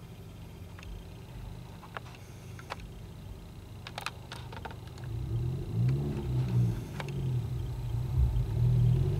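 Car subwoofers playing deep bass, an intermittent low roar that swells much louder about five seconds in, with a few faint clicks.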